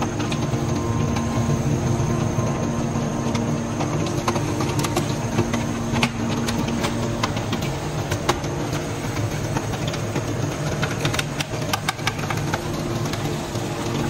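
Hydraulic scrap metal baler running with its chamber empty: the steady hum of its hydraulic power unit, with scattered sharp clicks and knocks.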